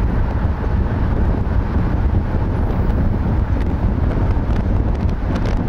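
Wind rushing over the microphone of a camera on a moving car, with road noise from the car, making a steady low rumble.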